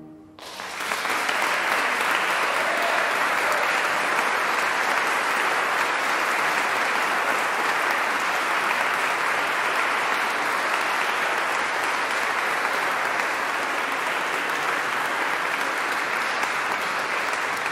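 Audience applauding, breaking out about half a second in as the choir's last held chord ends, then steady and sustained.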